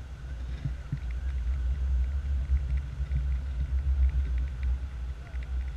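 Wind buffeting the microphone of a pole-held action camera during a tandem paraglider flight: an uneven low rumble that rises and falls.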